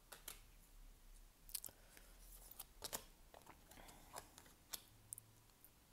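Faint clicks and light taps of oracle cards being handled and drawn from the deck, a few scattered through otherwise near silence.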